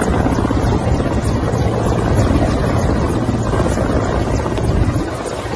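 Military transport helicopter hovering low overhead, its rotor and turbine engines making a loud, rapid chop. The sound eases slightly near the end.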